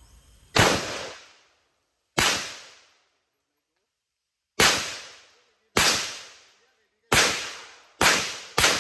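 Seven single shots from an M4-style rifle fired semi-automatically at uneven intervals, the last two close together. Each shot rings out and fades over about a second.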